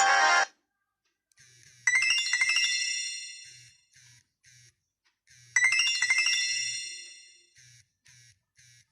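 Nokia 6500 Slide ringtone: a quick run of bright synthesized notes ending in chime-like tones that ring and fade, repeating about every three and a half seconds, twice here. A louder, denser tone cuts off about half a second in, and faint low pulses sound between the phrases.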